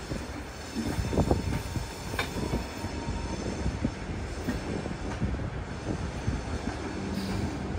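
Tejas Express passenger coaches rolling slowly past on the track: a steady rumble of wheels on rail, with a few sharp knocks and a faint high-pitched wheel squeal.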